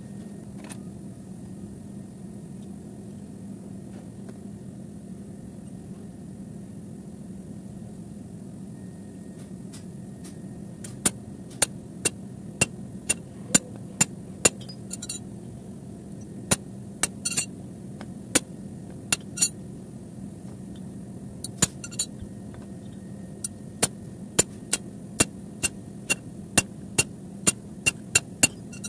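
Steady low hum with a run of sharp metallic clicks and taps, irregular at about one or two a second, starting about a third of the way in, as a hand tool works on the copper refrigerant pipework of an air-conditioner condensing unit.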